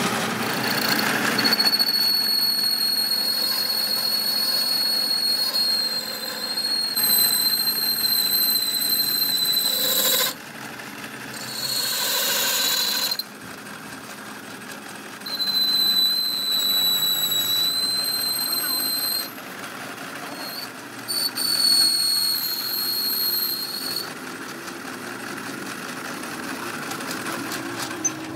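High-pitched squeal of metal being machined, a steady whine that comes in three stretches of several seconds each, with a short hissing burst between the first two.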